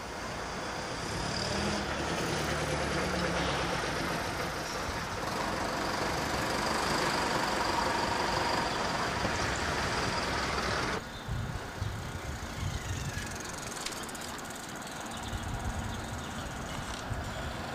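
Outdoor road-traffic noise, a steady rush that builds and then cuts off abruptly partway through, giving way to quieter traffic rumble.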